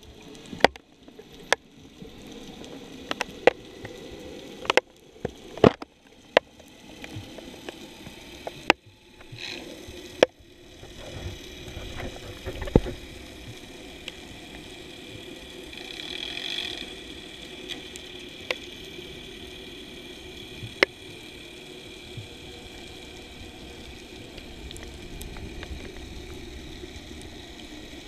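Underwater sound picked up by a camera held on a pole: a steady muffled water hiss with scattered sharp clicks and knocks, most of them in the first half.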